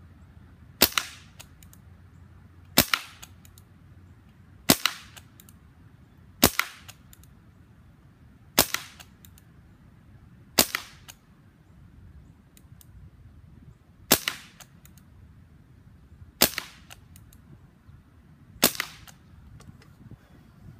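Benjamin Wildfire .177 PCP air rifle firing nine shots in quick succession, about one every two seconds with a longer pause midway. Each sharp crack is followed closely by a fainter second click.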